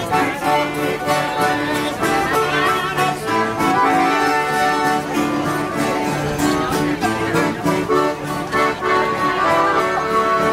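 Accordion and acoustic guitars of a small street band playing together, the guitars strumming chords in a steady rhythm under the accordion's held notes.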